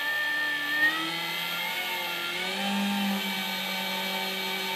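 Excelsior 10x18 mini lathe on the first test run of its newly fitted electronic variable speed motor, belt-driven and spinning with no workpiece: a steady motor whine that climbs in pitch over the first two seconds or so as it speeds up, then holds level. A brief louder click just under a second in.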